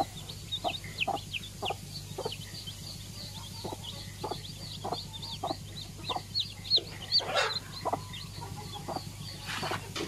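Newly hatched chicks peeping over and over, with high, short, downward-sliding cheeps several a second. A mother hen clucks low and short among them.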